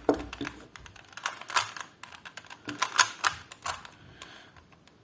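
Plastic 3x3 Rubik's cube being turned during a solve: irregular sharp clacks of its layers snapping round, several a second, thinning out near the end.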